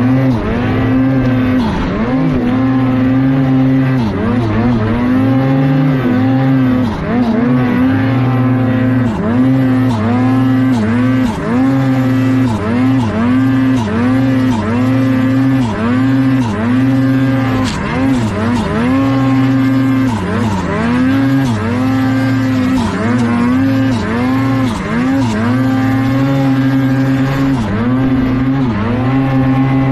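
Snowmobile engine running at high revs, its pitch repeatedly dipping briefly and climbing back, about once a second, as the throttle is eased and reapplied.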